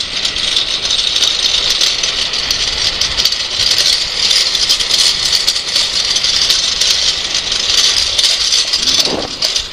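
Trike rolling fast downhill on asphalt: a steady hiss of wheels on the road surface with constant light rattling and clicking.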